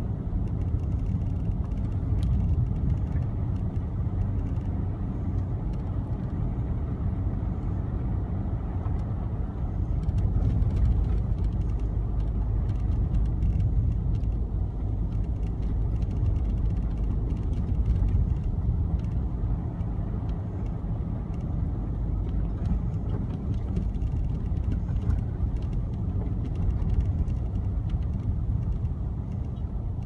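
Car driving, heard from inside the cabin: a steady low rumble of engine and tyres on the road.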